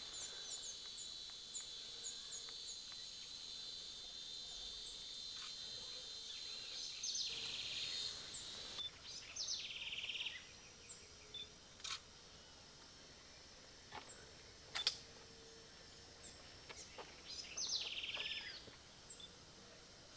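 Outdoor tropical-forest ambience: a steady high-pitched insect-like drone that stops abruptly about nine seconds in, short bird chirps, and a bird's buzzy song phrase repeated three times. A few sharp clicks of SLR camera shutters come in the second half.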